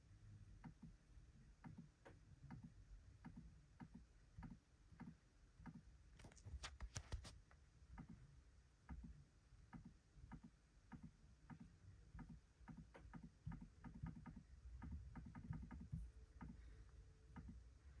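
Near silence with faint, irregular clicks and ticks scattered throughout, and a quick run of sharper clicks about six to seven seconds in.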